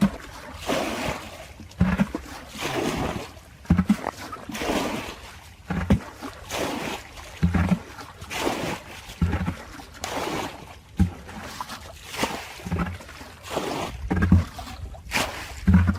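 Rhythmic water splashing and sloshing, about one splash every two seconds, each starting with a low thud.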